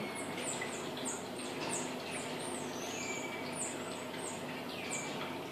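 A small animal chirping: a quick string of short, high chirps, about two a second, with one longer sweeping call near the middle.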